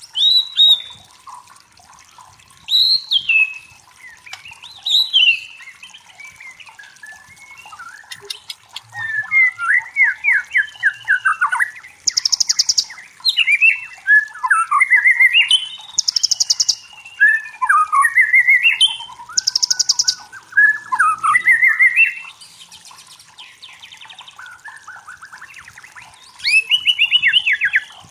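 White-rumped shama (murai batu) singing a varied song of whistled phrases, quick trills and sliding notes, with short pauses between phrases. In the middle, a buzzy high note comes three times, about three to four seconds apart.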